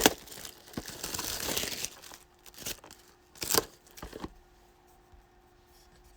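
Crinkly plastic wrapping of a trading-card box or pack being torn open and crumpled for about two seconds, followed by a few light knocks as it is handled.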